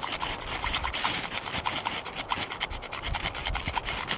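Ferrocerium rod struck repeatedly with the spine of a bushcraft knife: a fast run of short, sharp rasping scrapes, several a second, throwing sparks to light a fire.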